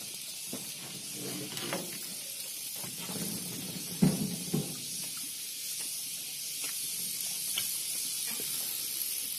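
A steady high hiss with a faint murmur of voices, and a sharp knock about four seconds in.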